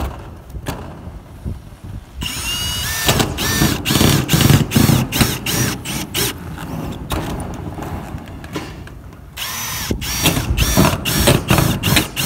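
Milwaukee M18 cordless screw gun driving self-drilling screws through corrugated metal roofing sheets, one screw after another. Each screw is a short burst of motor whine that rises and falls. The screws come in quick runs, with a pause in the middle.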